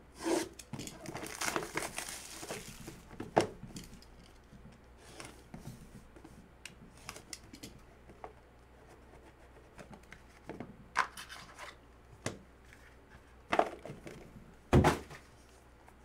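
A box cutter slits the shrink-wrap on a sealed cardboard trading-card box and the plastic is peeled and crinkled off during the first couple of seconds. Quieter handling of the box and cards follows, with a few sharp knocks and taps; the loudest comes near the end.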